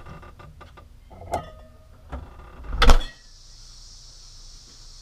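Refrigerator door open, with bottles and items knocking and clattering inside, then a loud thud just before three seconds in as the fridge door shuts. After that, a steady high hiss.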